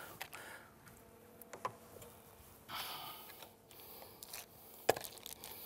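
Faint handling sounds of meat being taken from a plastic bag: a brief rustle of the plastic about midway, a few small clicks, and one sharp tap near the end.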